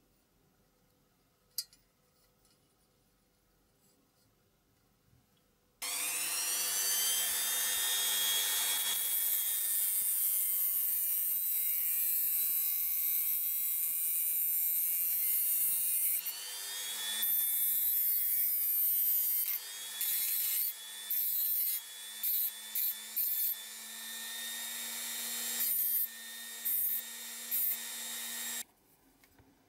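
Handheld rotary tool with a thin cut-off disc cutting through a thin metal rod: after a quiet start it spins up about six seconds in to a loud, high-pitched whine with grinding. In the last third the cutting breaks off and resumes in several short stops, then the tool cuts off near the end.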